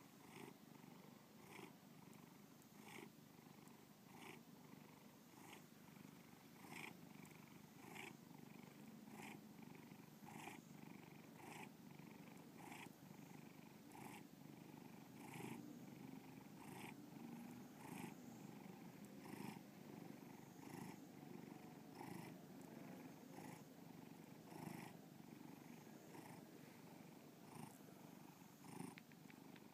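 Domestic cat purring steadily and faintly, close up, with a soft regular pulse about every three-quarters of a second.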